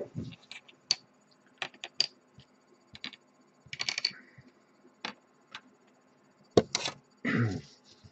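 Scattered light clicks and taps as small plastic model parts, 1/48-scale ejection seats, are picked up and handled on a cutting mat, with two brief rustles. The sharpest click comes about two-thirds of the way through.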